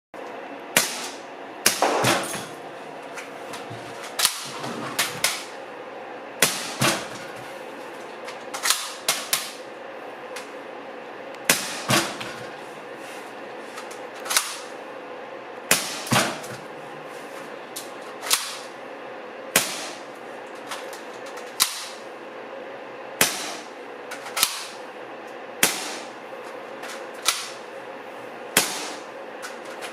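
Gas blowback airsoft M1911 pistol, a Tokyo Marui model running on an Ace 1 Arms gas magazine, firing about two dozen sharp shots. Most come singly a second or two apart, with a few in quick pairs and triples, over a steady background hum.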